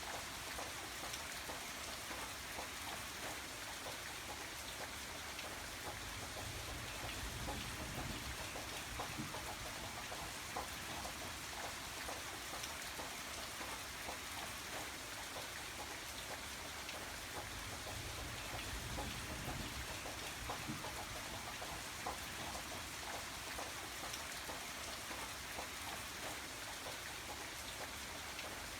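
Steady rain with many small raindrops pattering on a surface, with a low rumble that swells and fades every several seconds.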